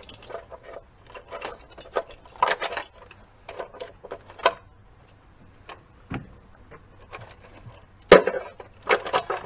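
Scattered small clicks, taps and rattles of hands and pliers working at a wiring harness and its plastic bracket. There is one sharp, loud snap about eight seconds in.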